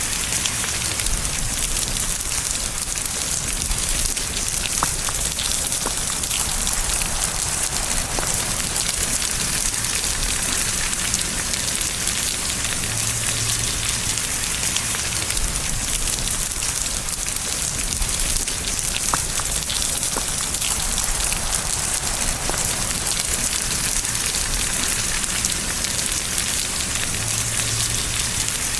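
Steady rain falling, an even hiss with scattered faint ticks of single drops.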